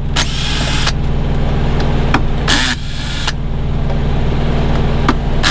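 Cordless drill with a Torx T30 bit running in three short bursts, about a second in, halfway through and at the end, as it backs out door-panel screws. Under it, the Freightliner Coronado semi truck's diesel engine idles steadily.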